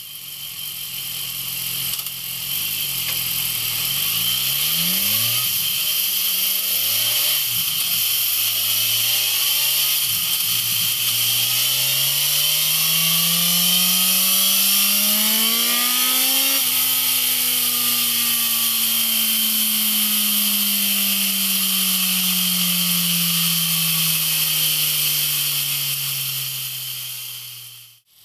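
BMW S1000XR's inline-four engine through a MIVV Speed Edge slip-on exhaust, revving up through several gears in quick rises of pitch, then one long pull that peaks a little past halfway. After that the revs fall slowly and steadily as the bike slows. A steady high hiss runs underneath.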